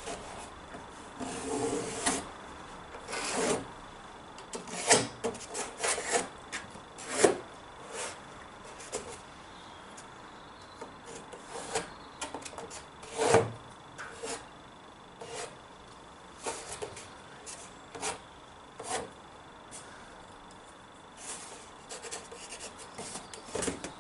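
A sheet of cardboard being handled against a steel column and traced round with a pencil to mark out a template: irregular scrapes and rustles, with short scratching strokes.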